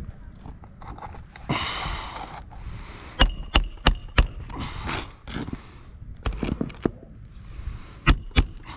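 Hammer driving roofing nails into shingles: sharp, ringing metal strikes, about four in quick succession a little past three seconds in and two or three more near the end, with scraping and handling of the shingles in between.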